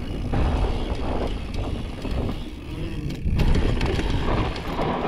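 Downhill mountain bike rolling fast over a dry dirt and gravel trail: a continuous rumble of tyre and ground noise with scattered clicks and rattles from the bike, loudest about three seconds in.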